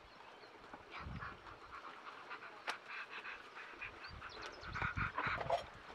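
Wood fire crackling with a few sharp snaps, over faint animal calls.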